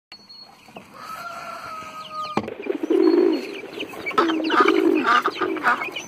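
A held whistle-like tone for about a second and a half, cut off by a sharp click, then poultry calling over and over in a run of short nasal calls.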